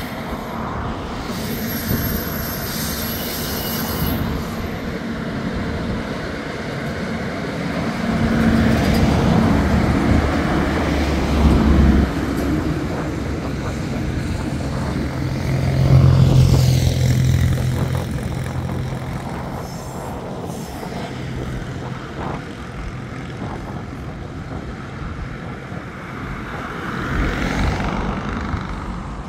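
TasRail freight train passing: the diesel locomotives' engines run past with a deep steady hum, loudest about a third of the way in and again about halfway. Then container wagons and empty log wagons roll by with the steady noise of wheels on rail, slowly fading, with a thin high wheel squeal at the start.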